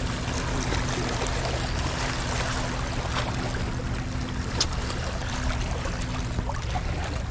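Steady wash of sea water at the shoreline, with a low steady hum underneath that fades out near the end.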